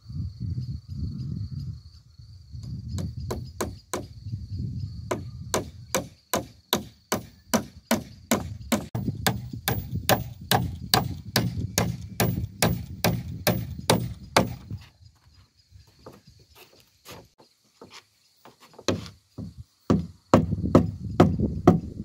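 Hatchet striking the wooden frame of a timber cabin: a fast, even run of blows, about three a second, for roughly ten seconds, then a few more knocks near the end. Crickets chirp steadily underneath.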